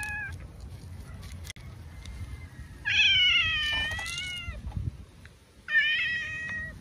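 Domestic cat meowing: the tail of one meow right at the start, then two long, loud meows, the first about three seconds in and the second near the end.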